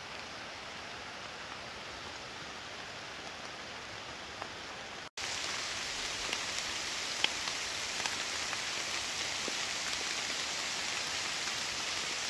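Steady rain falling on the woods: an even hiss with scattered drop taps. It breaks off for an instant about five seconds in and comes back louder.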